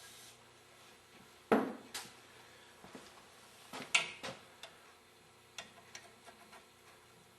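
Scattered sharp metallic clinks and taps of small steel parts and hand tools being handled on a workbench, with two louder knocks about a second and a half and four seconds in and lighter ticks after.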